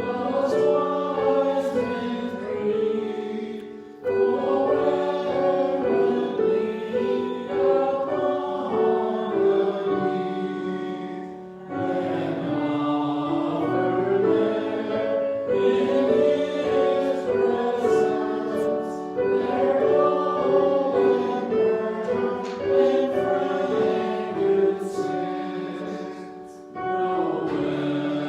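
Choir singing church music in long sustained phrases, with brief pauses between phrases about 4, 12 and 27 seconds in.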